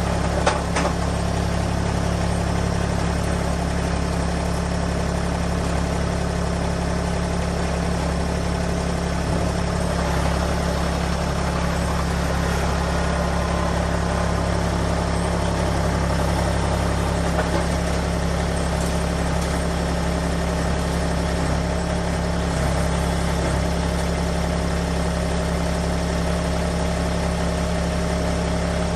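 Engine idling steadily, with a couple of sharp clicks about half a second in.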